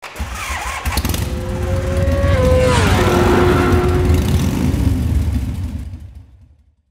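Intro sound effect of a motorcycle engine sweeping past over a deep rumble, its pitch dropping about two and a half to three seconds in, then fading out near the end.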